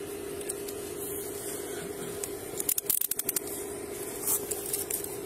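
Metal handcuffs being readied for an arrest, clicking through their ratchet: a quick run of sharp clicks about halfway through, over a steady hum.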